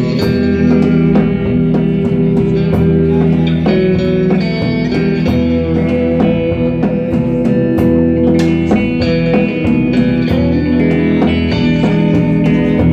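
Live band playing an instrumental number, led by two electric guitars over a steady beat.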